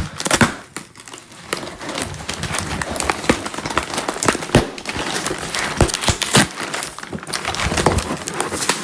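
Cutting and tearing through the packing tape on a cardboard shipping box: a continuous stream of scratching noise with many sharp clicks and ticks as the blade and tape work against the cardboard.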